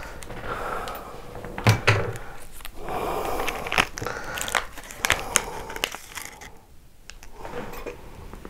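A foil snack packet crinkling and rustling as it is cut open with scissors, with several sharp clicks and snips.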